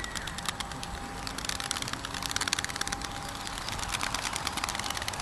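A flock of racing pigeons flying close by, their wingbeats making a dense, rapid clicking patter.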